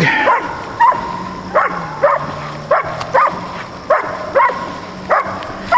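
A dog barking in short, high yips, about ten in a row at a steady pace, with a steady low hum underneath.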